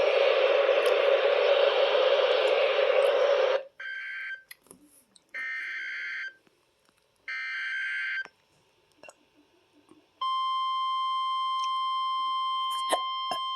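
An Emergency Alert System SAME header: three short, buzzy one-second data bursts, followed by the steady, high 1050 Hz weather-radio alert tone that begins about ten seconds in. Before the bursts, a loud rushing noise cuts off abruptly about three and a half seconds in. The weather radio being tested does not sound an alert of its own.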